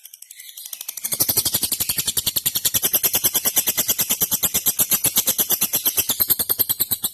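Lovebird's long 'ngekek' song: a rapid, even chatter of about a dozen notes a second that starts about a second in and runs on without a break.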